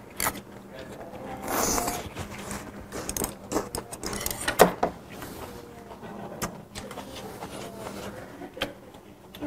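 A person slurping shabu-shabu vegetables off a small dish, then chewing with wet mouth sounds: a hissing slurp about one and a half seconds in, followed by a run of short sharp clicks and smacks, the loudest a little before the middle. A faint steady hum runs underneath.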